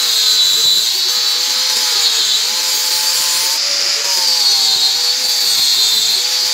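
Angle grinder grinding rust off a steel axe head: a steady motor whine over a loud hissing grind. The pitch sags and recovers slightly a few times as the disc is pressed into the metal.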